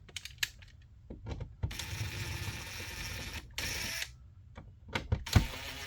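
Small clicks and knocks of hands working an electrical outlet into a wall box, with a scraping rustle lasting about two seconds in the middle and two sharper knocks near the end.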